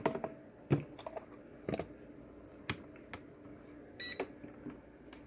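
A few sharp clicks and knocks of test gear being handled and set down on a bench mat. About four seconds in comes one short beep from a HoldPeak HP-90B digital multimeter as it is switched on.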